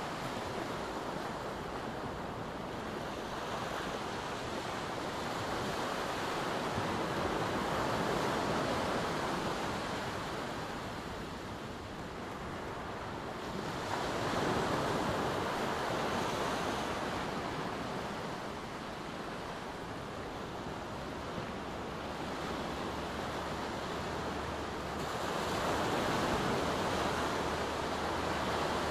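Small waves breaking and washing up a sandy beach, the surf swelling and fading in three slow surges.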